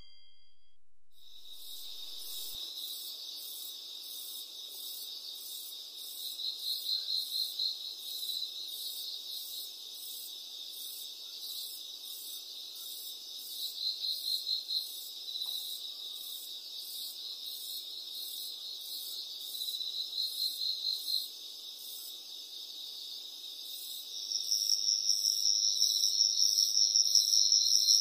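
Chorus of insects chirring steadily at a high pitch, with louder trilling phrases swelling every several seconds. A second, louder high-pitched buzz joins near the end.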